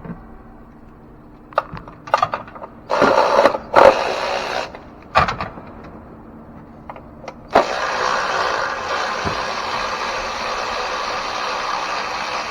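Handheld power tool whirring in two runs as it spins out the throttle body's 8 mm bolts: a short run about three seconds in and a longer one from about seven and a half seconds in to the end. Metal clicks and clatter from the socket and bolts come between the runs.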